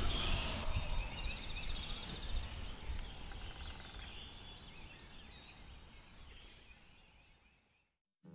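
Songbirds singing and calling over a low rumble, with a fast, even trill in the first two seconds; the whole sound fades out steadily to silence near the end.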